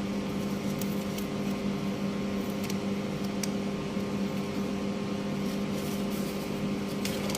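A steady mechanical hum with a low drone runs throughout. Over it come a few faint, scattered crinkles and ticks as a protective plastic wrapper is peeled off a small action camera.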